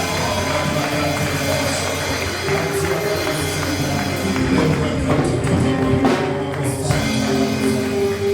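Gospel worship music playing, with sustained held notes.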